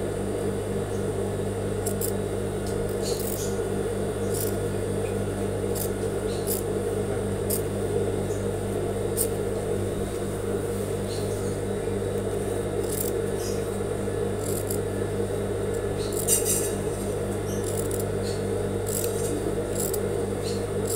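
Industrial sewing machine's motor humming steadily during topstitching, with scattered light clicks and snips from the machine and the fabric being handled.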